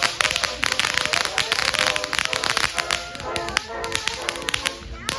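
Consumer fireworks crackling in dense, irregular rapid pops, with music playing over them.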